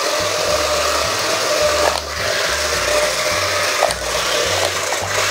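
Battery RC stunt car driving on a concrete floor: the steady high whirr of its small electric drive motors and the rush of its wheels, briefly dipping twice as it changes direction. A low, regular bass beat of background music runs underneath.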